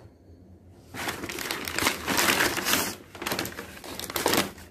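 Brown paper delivery bag crinkling and rustling as it is handled and opened to take out a shoebox, starting about a second in, with a short lull near the middle.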